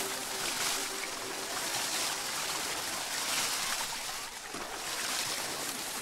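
Water running and splashing down a wet slide as people slide on it: a steady rushing hiss.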